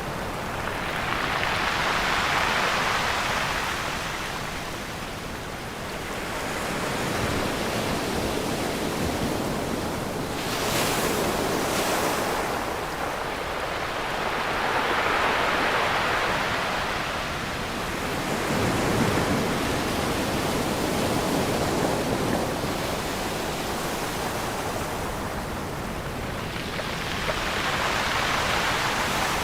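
Ocean surf on a beach: waves breaking and washing in, the rush swelling and fading about every four to eight seconds.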